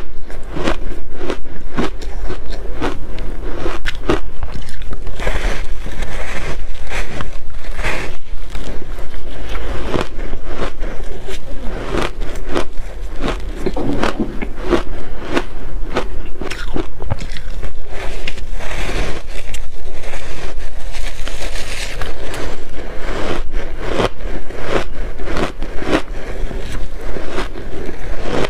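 Close-up biting and crunching of dry shaved ice coated in matcha powder: a steady run of rapid, loud crunches and crackles.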